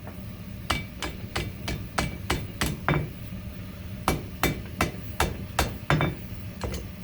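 Four-pound hand hammer striking hot coil-spring steel, about three blows a second in two runs with a short pause between, chamfering the edges of a knife blank.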